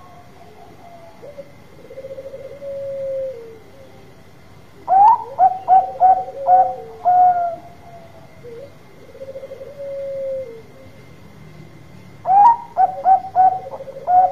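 Bangkok-type zebra dove (perkutut) singing: two bouts of loud, quick, clipped cooing notes, about six to a bout, about five and twelve seconds in. Between the bouts come softer rolling coos that fall slightly in pitch.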